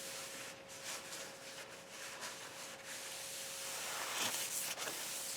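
An India stone rubbed by hand over a planer's cast-iron ways, a faint scraping to dress out nicks and scratches, over a thin steady hum.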